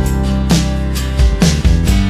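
Background music: an instrumental with plucked strings over a bass line.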